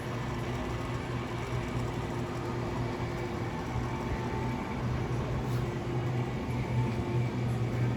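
Banvil Gold Line industrial ceiling fan running, its motor giving a steady low hum over the whoosh of moving air.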